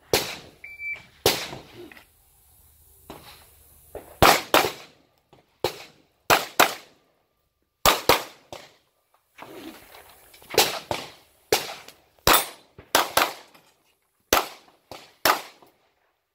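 An IDPA shot timer beeps once with a short tone, then a handgun fires more than a dozen shots across the stage. The shots come mostly in quick pairs a fraction of a second apart, with pauses between the pairs as the shooter moves between targets.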